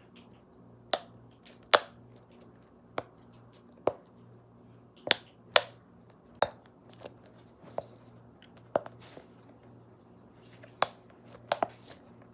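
Fidget toys being handled: sharp clicks and pops at irregular intervals, roughly one a second and sometimes two in quick succession, over a low steady hum.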